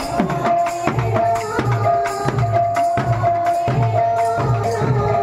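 Devotional kirtan music led by double-headed barrel drums (khol/mridanga) in a steady rhythm, with a deep bass stroke that slides down in pitch about every three-quarters of a second, under a held melody line.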